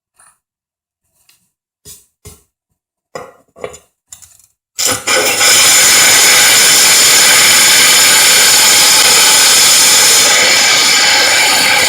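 A few light knocks and clicks, then about five seconds in a drill fitted with a diamond hole saw starts up and runs steadily and loudly, cutting into porcelain tile.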